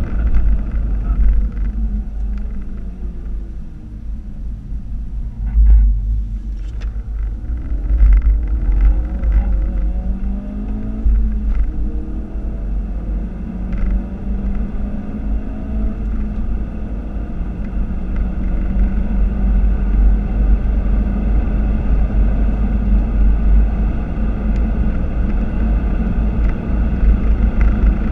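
Ford Focus RS Mk3's turbocharged 2.3-litre four-cylinder engine heard from inside the cabin under hard track driving, over heavy road and wind rumble. Its revs fall as the car slows a few seconds in, then climb again through the gears and settle into a steadier high-speed drone. A few short knocks and clicks come in the middle.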